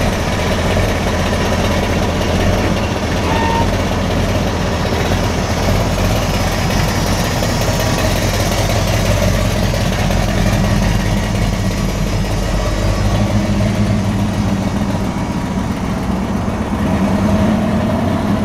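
Swapped-in LS V8 engine of a 1968 Chevrolet Impala running at a low, steady idle as the car creeps along at walking pace.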